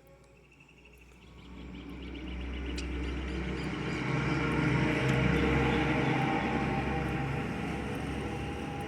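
A motor vehicle passing by outside, its engine and tyre noise swelling to its loudest about halfway through and then fading away.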